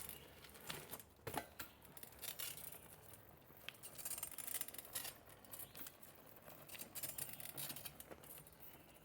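Faint, irregular light clicks and small rattles, the strongest about a second in.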